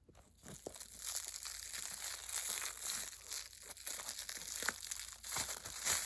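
Plastic wrap crinkling and rustling continuously as it is handled and peeled off, with many small crackles.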